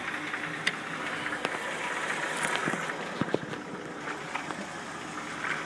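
Van engine idling, with scattered short clicks and scuffs over it.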